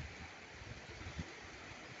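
Small sea waves lapping on a stony shore, with wind buffeting the microphone in low gusts and one sharper bump about a second in.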